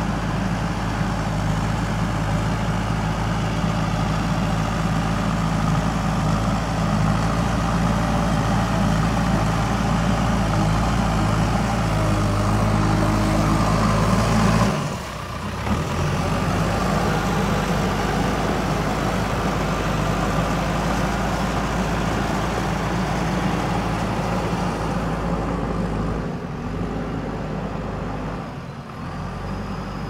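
JCB 3DX backhoe loader's diesel engine running steadily as the machine works soil with its front loader bucket. The sound dips briefly about halfway through and gets quieter near the end.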